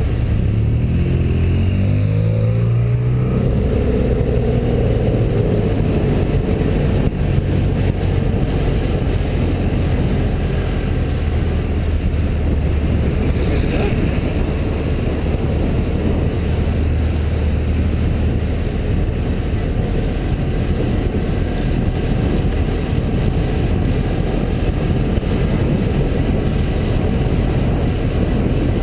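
BMW F650GS motorcycle engine running under way on a mountain climb. The engine note shifts in pitch over the first few seconds, then holds steady.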